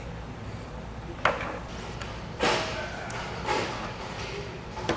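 Hands tying a knot in elastic shock cord at a tent pole's end: a few short rustles and soft taps of cord and pole being handled, over a low steady room hum.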